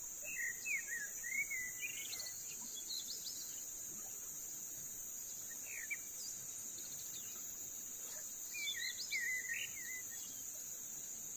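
Steady high-pitched drone of forest insects, with a bird singing a fast warbling phrase twice: once about a second in and again near the end.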